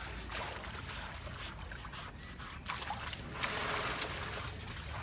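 Water splashing and pouring over an elephant during its bath, with a louder rush of spray a little past the middle.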